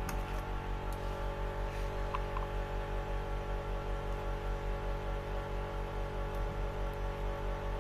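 Steady electrical hum with a regular pulsing throb, and a few faint clicks.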